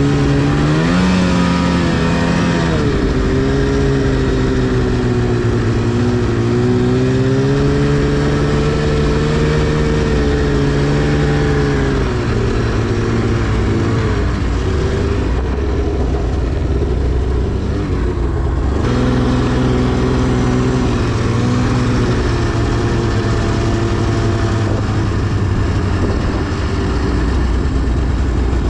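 2010 Arctic Cat CFR 1000's two-stroke engine running hard under throttle. The engine note climbs about a second in and holds steady, then drops off and rises again as the throttle is worked.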